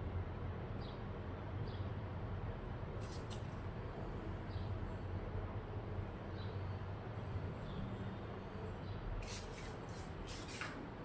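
Pet parrot making a few short, high squeaks, a pair about three seconds in and a cluster near the end, over a steady low hum.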